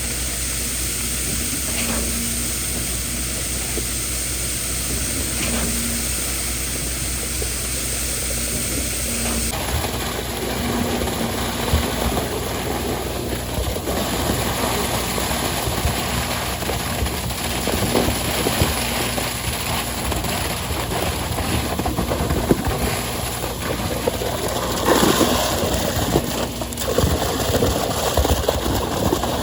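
A heavy engine runs steadily on a concrete job site, with a low tone that comes and goes about every two seconds. About ten seconds in, the sound changes abruptly to a noisier stretch of many short scrapes and knocks over the machine noise.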